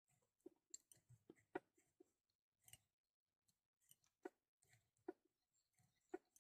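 Faint, irregular small clicks and ticks, about a dozen, from fly-tying tools being handled at the vise.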